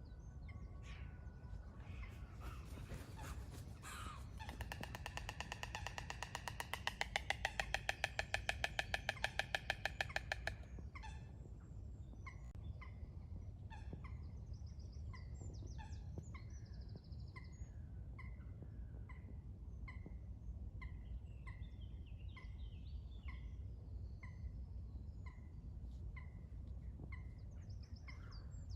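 White stork clattering its bill: a fast, even train of wooden knocks that builds in loudness for about eight seconds and then stops abruptly. Afterwards another bird gives a short call about once a second over a steady low rumble.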